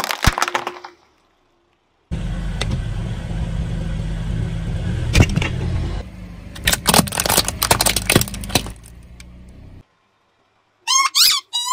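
A car's tyres roll slowly over objects with a steady low rumble of engine and tyres. This is followed by a run of sharp crunches and cracks as the tyres crush what lies under them. A short ringing tone comes near the end.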